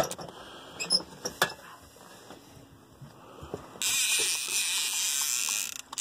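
Fishing reel's drag buzzing as a hooked paddlefish pulls line out. It stops just after the start and buzzes again for about two seconds in the second half. There are a couple of sharp knocks about a second in.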